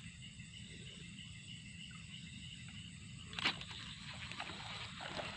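Quiet outdoor background: a steady low rumble and a faint steady high hum, with one brief sharp sound about three and a half seconds in and a few faint ticks near the end.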